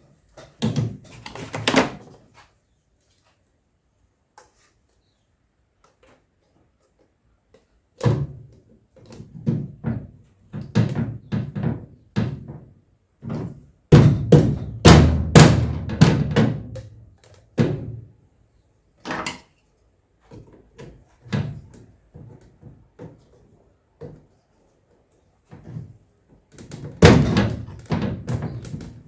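Mallet knocking plastic pieces of a tailgate gap seal into place: groups of quick, sharp knocks with short pauses between, the loudest run about halfway through.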